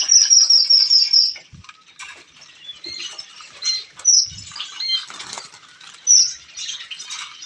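Small birds chirping: a quick run of about eight high chirps in the first second, then scattered single chirps and short tweets, with wing flutters and rustling from doves in a small wire cage.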